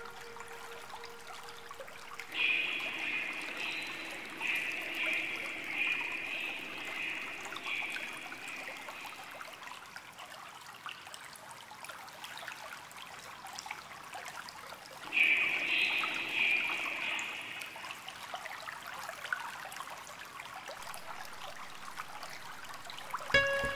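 Water trickling and splashing in two spells, one of about seven seconds starting two seconds in and a shorter one starting about fifteen seconds in, over faint steady background noise.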